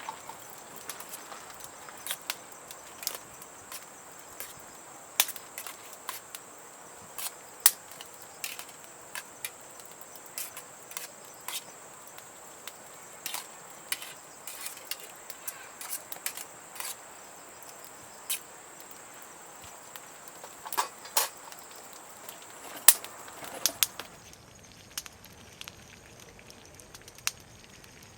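Wood fire crackling: irregular sharp pops and snaps over a low steady hiss.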